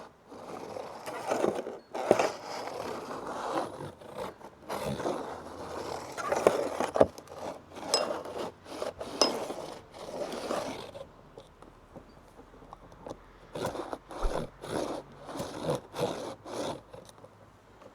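Circle compass's marking tip scraping around the work surface as a circle is drawn, in repeated strokes for about the first ten seconds. After that come scattered light clicks and taps.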